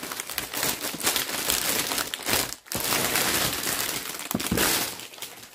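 Packaging crinkling and rustling as it is unwrapped by hand, with a brief pause about two and a half seconds in.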